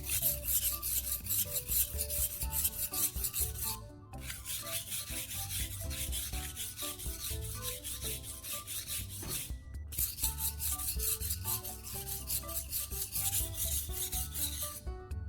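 Steel knife blade stroked quickly back and forth on the coarse 240-grit side of a wet whetstone coated with baking soda paste, a rapid rasping scrape. The scraping breaks off briefly twice, about 4 and 10 seconds in.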